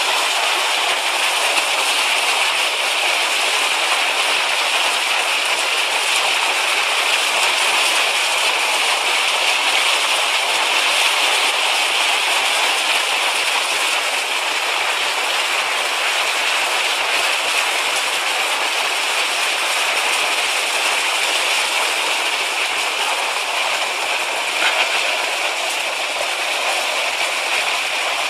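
Mountain stream rushing over rocks and white water, a steady hiss-like roar that holds at one level.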